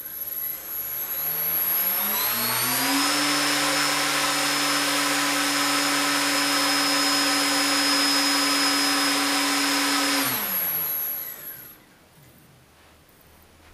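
RaceStar BR1811 2000KV brushless outrunner motor spinning a propeller on a static thrust test. It spins up over about three seconds and runs at a steady pitch with a whine and a rush of air. About ten seconds in it winds down and stops.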